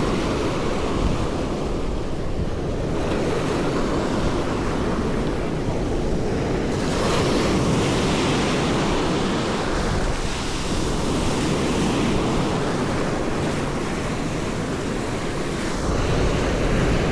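Ocean surf washing in a steady hiss, with a wave breaking about seven seconds in. Wind rumbles on the microphone, stronger near the end.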